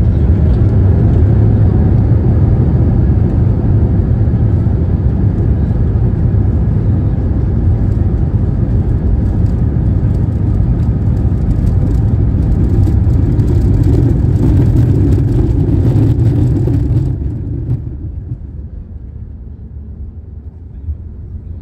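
Loud, steady cabin noise of an airliner rolling down the runway after landing: engine and rolling rumble with a hiss above it. About four seconds before the end it drops sharply to a quieter, lower hum.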